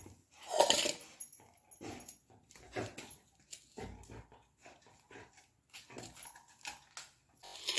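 A golden retriever crunching a piece of green vegetable, loudest about half a second in, followed by scattered light clicks and knocks from a knife cutting cauliflower over a steel pot.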